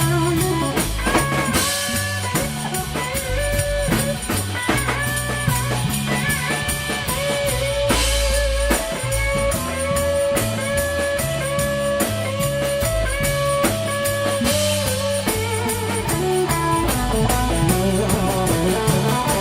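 Live blues-rock band playing an instrumental break: a lead electric guitar holds and bends notes with vibrato over bass guitar and a steady drum kit beat.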